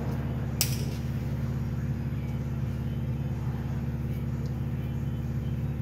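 Steady low mechanical hum with a single sharp click about half a second in.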